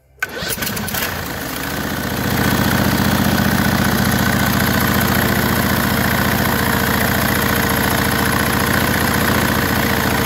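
Briggs & Stratton Vanguard V-twin overhead-valve engine cranked and catching almost at once, then running steadily from about two seconds in. The engine has a suspected blown head gasket that is pushing exhaust into the crankcase.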